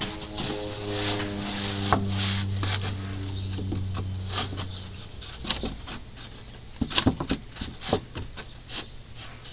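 Wooden fence boards being handled and fitted, with scraping, small knocks and a sharp loud knock about seven seconds in. A steady low hum runs under the first half and stops about five seconds in.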